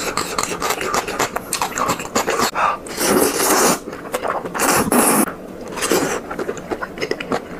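A person eating noodles: wet chewing and lip-smacking clicks, with a long noisy slurp about three seconds in and another about five seconds in.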